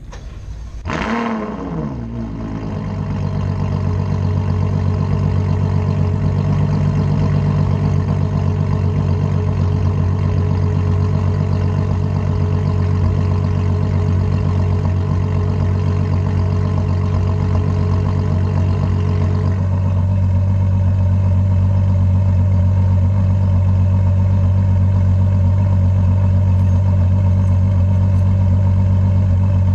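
Ferrari FF's 6.3-litre V12 starting about a second in through a Tubi Style valved aftermarket exhaust, flaring and falling back to a steady idle. About twenty seconds in, the idle note changes and gets slightly louder.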